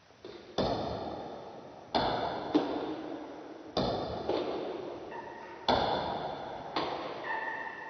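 Table tennis ball striking paddles and the table in a rally, slowed down: about seven knocks, one every second or so, each ringing out in a long echo.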